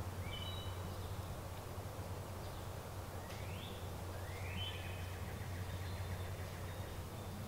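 Woodland songbirds calling: a few short high whistled notes near the start, then two rising whistled calls a little after the middle, over a steady low hum.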